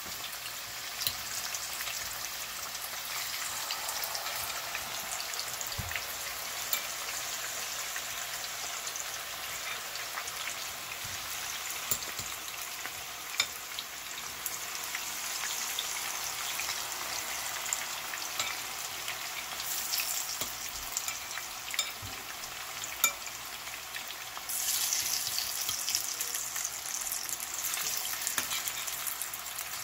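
Flour-coated boneless chicken pieces frying in hot oil in a pan: a steady sizzle with scattered sharp pops and crackles. The sizzle grows louder about 25 seconds in.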